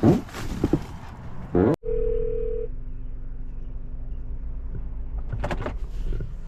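An outgoing phone call being placed over a speaker: a short steady ring tone about two seconds in, then a faint low hum from the open line.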